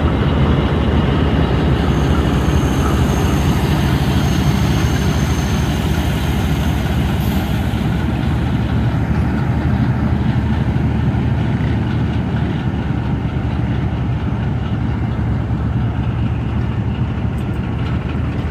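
Pakistan Railways passenger train hauled by an RGE20 diesel locomotive pulling slowly out of the station: a steady diesel engine drone under the rumble of the power van and coaches rolling past on the rails.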